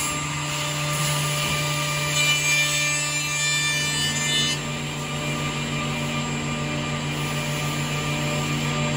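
HOLZ-HER Sprint 1310 edge banding machine running with a steady hum. A cluster of higher whining tones joins for about two seconds near the middle.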